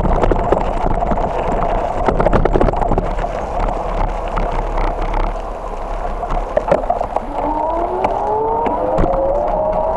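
Bicycle being ridden over rough gravel and onto a paved street: a steady rumble of tyre and road noise with many sharp rattles and knocks. From about seven seconds in, a vehicle engine rises steadily in pitch as it accelerates.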